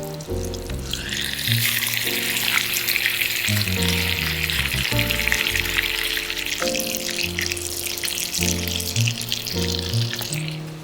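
Food sizzling as it fries in a hot pan, with background music carrying chords that change about once a second. The sizzling cuts off near the end.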